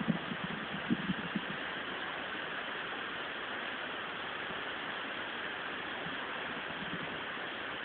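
Steady hiss of outdoor background noise, with a few faint crackles in the first second and a half.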